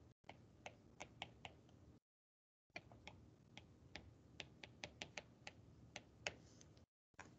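Faint, quick taps and clicks of a stylus on a tablet's glass screen during handwriting, several a second, broken by two short spells of dead silence.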